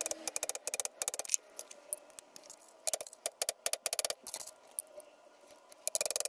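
Rapid light metal-on-metal hammer taps with a ringing tone: a claw hammer striking an old wheel bearing used as a driver to seat a new bearing race into a Toyota Pickup front wheel hub. The taps come in quick bursts, pause for about a second and a half near the end, then start again.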